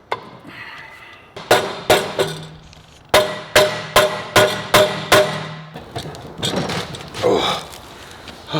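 Hammer blows driving bevelled steel plugs into chopper hardtail frame tubes, the steel ringing after each strike: two blows, a pause, then a steady run of six at about two and a half a second.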